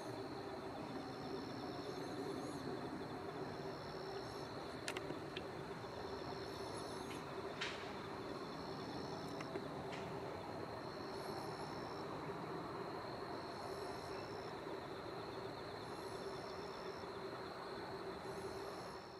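Crickets chirping: a steady high trill with a second, higher call repeating every two to three seconds. Beneath it runs a low steady hum, with a few faint clicks.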